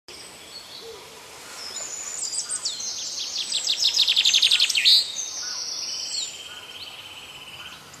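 Songbirds singing: overlapping high whistled phrases, then a rapid trill that builds to the loudest point about five seconds in, followed by a lower, steadier trill that fades before the end.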